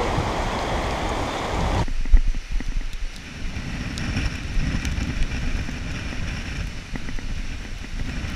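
Steady hiss of rain and wind on the microphone, cutting off abruptly about two seconds in. After that comes a quieter low rumble of wind on the microphone, with light knocks of split firewood being taken off a stack.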